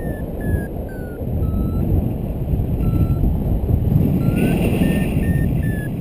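Paragliding variometer beeping in short tones over loud wind rush on the microphone. The beeps fall in pitch and thin out, then rise again and quicken about four seconds in, the vario's way of signalling climb in a thermal.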